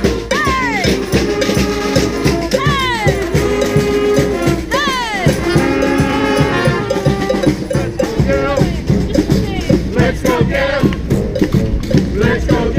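Street brass band playing a New Orleans-style brass band tune: horns over a steady, driving drum beat with shaken percussion, and several sharp falling pitch glides in the first five seconds.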